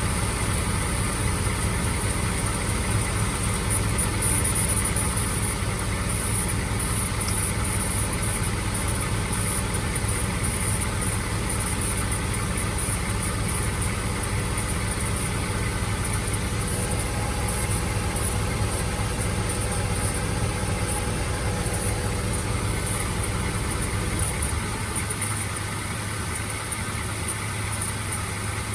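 Mazda MX-5 engine idling steadily, with a steady high-pitched hiss over it.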